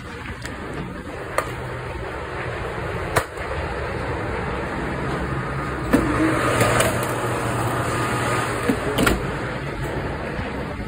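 Steady machinery hum and noise of a commercial kitchen, broken by a few sharp knocks and clatters.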